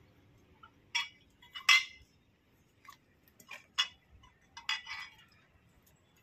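Small glass liquor bottles clinking against one another as they are pulled from a hidden jacket and set down in a row, a handful of sharp chinks with the loudest about two seconds in.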